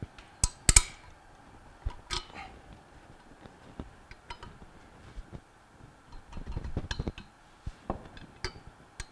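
Scattered metallic clinks and clicks of a steel wrench loosening and removing the bolts that hold a Bell & Gossett Series 80 pump's cover plate to its motor. The sharpest clink comes just under a second in.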